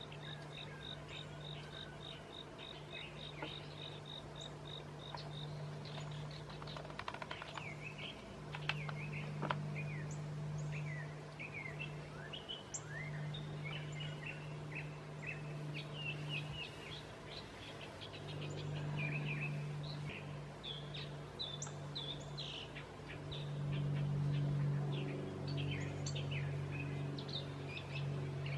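Songbirds chirping and calling in a garden, with an even, rapid high ticking for the first few seconds. A low hum sits underneath, swelling and fading, loudest near the end.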